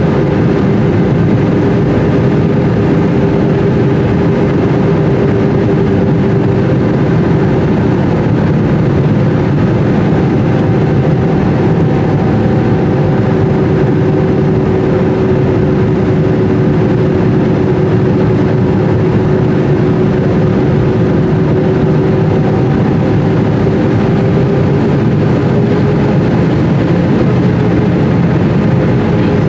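Airbus A320 cabin noise in flight, heard from a window seat over the wing: a steady roar of jet engines and airflow, with a droning hum that sags slightly in pitch partway through and comes back up.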